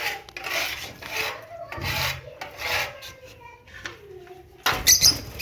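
Lovebirds giving harsh, raspy chattering calls in short bursts, with a louder, busier flurry of calls near the end.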